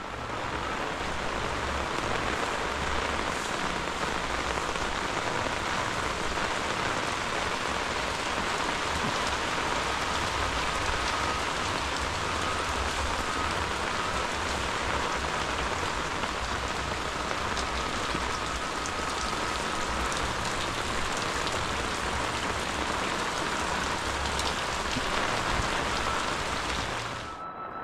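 Heavy rain falling steadily on clay-tile roofs and the thick vegetation around them.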